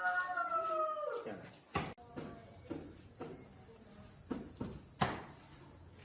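A rooster's crow trails off, falling in pitch, in the first second. Then a steady high-pitched insect chorus with two sharp knocks, one near two seconds and one near five.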